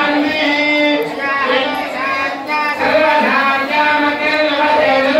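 Devotional singing or chanting in long held notes at a steady pitch, accompanying the homam fire ritual.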